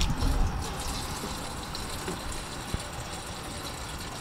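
Water running from an outdoor tap into a metal stovetop kettle as it is filled, a steady rushing hiss. A muffled bump comes at the start and a single light knock a little under three seconds in.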